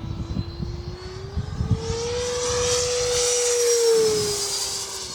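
Electric ducted fan of an HSD SuperViper RC jet whining as the model flies a pass: the whine rises in pitch and loudness to a peak about three to four seconds in, then drops away.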